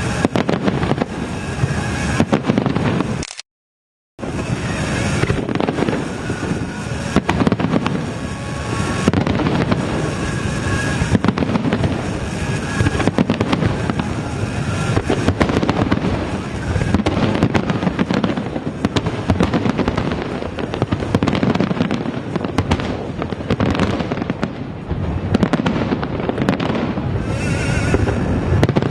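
Large aerial fireworks display: a dense, continuous barrage of bursts and crackling shells. The sound drops out completely for under a second about three and a half seconds in.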